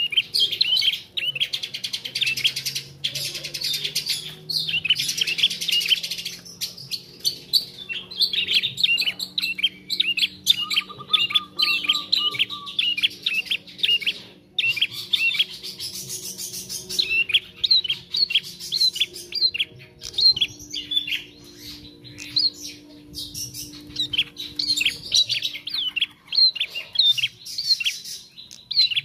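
Young tailorbird (prenjak trotol) practising its song: a fast run of short, high chirps, with a brief pause about halfway through and another near the end. A faint low hum runs underneath.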